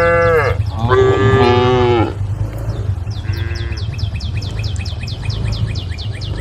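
Cattle mooing: a short moo, then a longer one that drops in pitch at its end, then a brief third call. A steady low hum runs underneath, and from about halfway through a fast, even series of high chirps, about four a second, continues.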